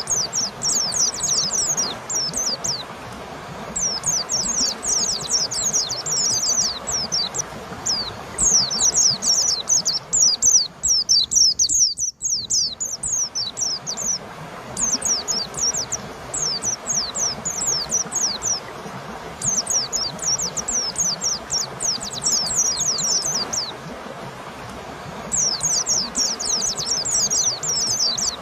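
White-eye (pleci) singing: bursts of rapid, high, downward-sliding notes lasting a few seconds each, with short pauses between, over a steady background hiss. The sound drops out briefly about twelve seconds in.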